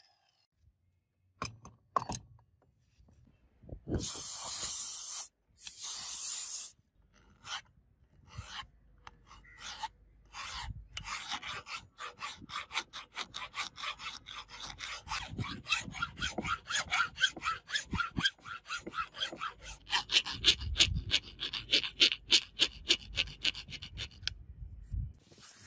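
Hand files rasping across the steel edges of an axe head clamped in a vise, taking off the sharp edges (deburring). After a couple of longer strokes it settles into quick, repeated back-and-forth strokes, a few a second, with a flat file and then a round file.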